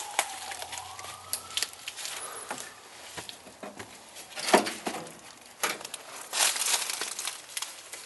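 Crackling and crunching of dry leaves and debris, with a sharp knock about four and a half seconds in. A distant siren wails, falling and then rising in pitch, during the first second or so.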